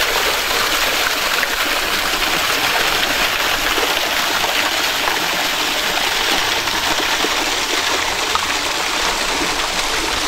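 A small waterfall spilling over rock, the water splashing steadily.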